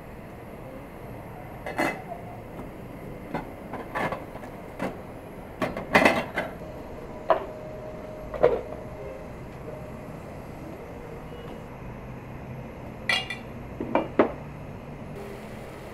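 Kitchen utensils and dishes clinking and knocking: a dozen or so scattered sharp clinks, bunched in a few clusters, one leaving a short metallic ring.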